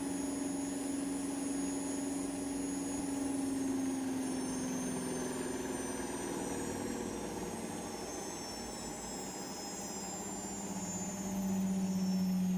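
Servis washing machine on its 1800 rpm spin, the drum and motor running with a steady whine that slowly falls in pitch. A louder, lower hum comes in near the end.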